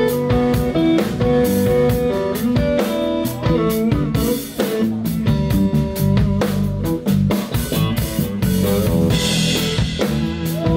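Live rock trio playing an instrumental passage: Telecaster-style electric guitar lines over electric bass and a drum kit. A cymbal wash about nine seconds in.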